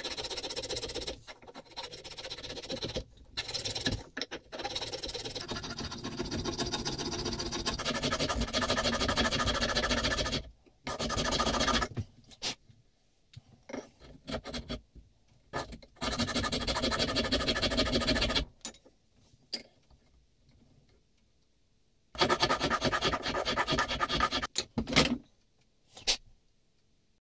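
Small hand file and toothed planemaker's float rasping the beech wood inside a plane's blade mortise: runs of quick back-and-forth strokes lasting several seconds, with pauses between. A couple of sharp knocks near the end.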